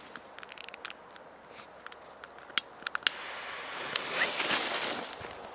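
Rustling in grass and a few sharp clicks, then a firecracker fuse catches and hisses, spitting sparks, for about a second and a half before the hiss eases off.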